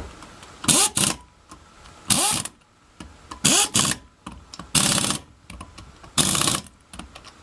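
Impact wrench fired in short rattling bursts, its motor whirring up at the start of each, about once every second and a half: wheel nuts being run off or on during a tyre change.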